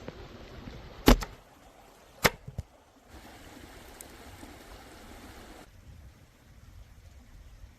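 Two loud, sharp knocks about a second apart, the second followed by a softer one, over a faint rustling hiss that stops a little past halfway.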